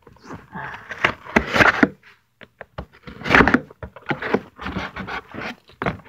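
A cardboard shipping box being cut open: irregular bursts of scraping and tearing of tape and cardboard, loudest about a second in and again about three seconds in, with small knocks as the box is handled.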